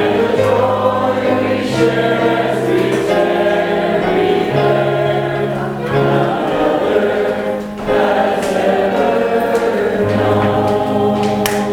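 A group of voices singing a worship song over instrumental accompaniment, with sustained bass notes that change every second or two.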